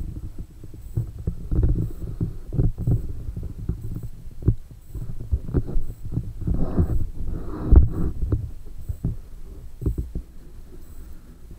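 Muffled underwater knocking and sloshing from an underwater camera being moved around inside a water drum, with irregular low thumps and a sharper knock about eight seconds in.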